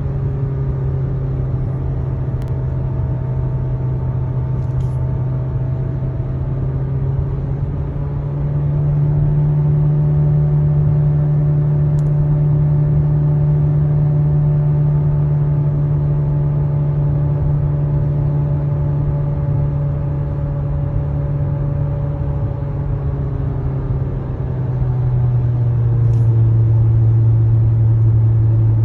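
A car's steady low droning hum with overtones, the strange noise in question. It rises slightly in pitch about eight seconds in and drops lower and louder near the end.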